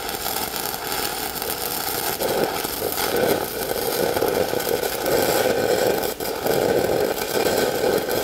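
Stick-welding arc of a 1/8-inch E6010 fast-freeze electrode burning on an open-root pipe joint: a steady crackling hiss with a brief dip about six seconds in.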